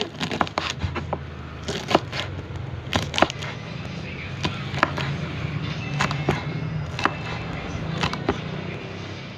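A kitchen knife slicing green beans on a wooden cutting board. The blade knocks on the board irregularly, often in quick pairs, over a steady low hum.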